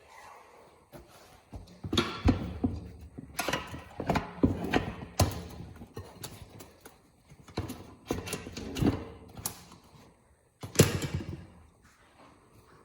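Metal tire spoons knocking and scraping against a motorcycle wheel rim as a tyre is levered off it, in irregular clusters of knocks and scrapes, the loudest about two seconds in and again near the end.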